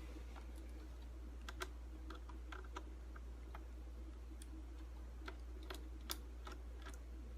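Small irregular clicks and ticks of a Phillips screwdriver working the tiny screws out of a laptop's screen frame and the plastic lid being handled, two of the clicks sharper than the rest, over a faint steady low hum.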